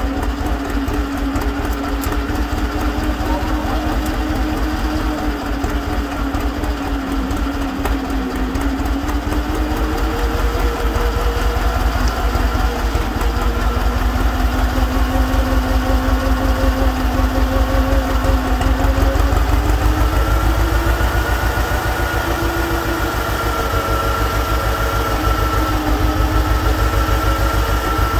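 Old John Deere tractor engine running steadily while driving an M&W FR-1000 PTO dynamometer, its even low beat under a whine that wanders in pitch. It grows louder between about ten and twenty seconds in, and a higher whine joins about twenty seconds in.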